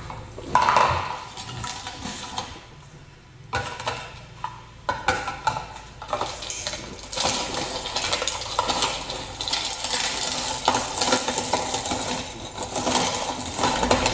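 Plastic hand-cranked meat grinder: a few knocks of plastic parts being fitted in place, then a continuous crunching rattle as the crank turns the auger and grinds dried red chilies through the cutting plate.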